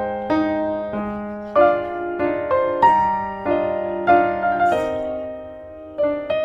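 Background piano music: a gentle melody of notes and chords, each struck and left to ring and fade.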